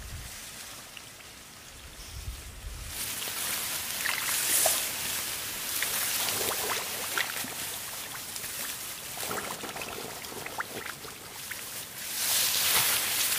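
Water pouring and trickling, with small splashes and drips; it starts about three seconds in and swells twice.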